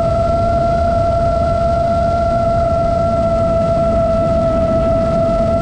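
iFlight Nazgul5 FPV quadcopter's brushless motors and propellers droning at a steady pitch, at a constant throttle, over a low rumble.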